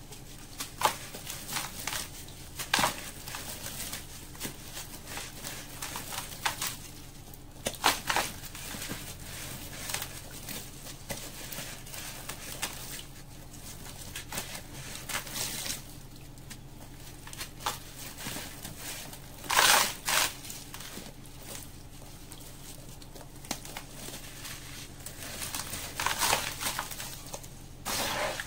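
Gritty sand-cement block being crushed and crumbled by hand: irregular crunching and crackling, loudest a little over two-thirds of the way through.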